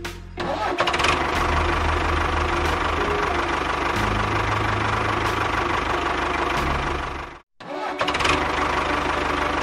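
Tractor engine running steadily, cutting out for a moment about three-quarters of the way through and then running on.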